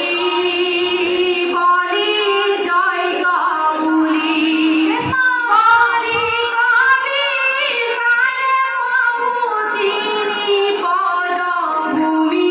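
A group of women singing dihanaam, Assamese devotional chant, their voices joined on long held notes.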